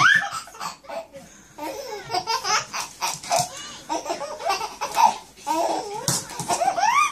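A baby laughing and squealing in repeated bursts, with high rising squeals at the start and again near the end.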